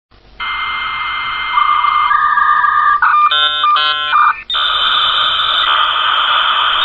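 Electronic intro tones over hiss: steady tones that step up in pitch twice, a short cluster of chord-like tones, then a steady hiss.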